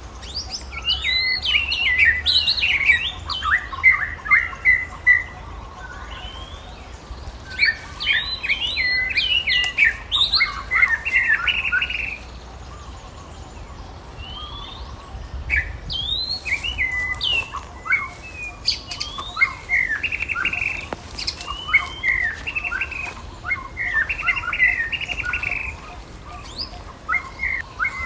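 Bouts of rapid, high-pitched chirping and squawking animal calls, coming in several bursts with short lulls between them, over a faint steady low hum.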